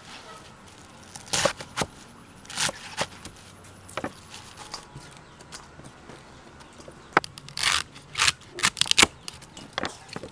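Crisp rustles and knocks of napa cabbage and celery being handled and cut with a kitchen knife on a wooden chopping board: a few scattered sounds, then a busier cluster near the end.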